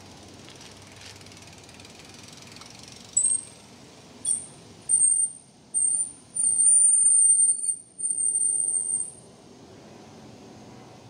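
Bicycle brakes squealing: a shrill, high-pitched squeal in about six bursts, starting about three seconds in, the longest lasting over a second.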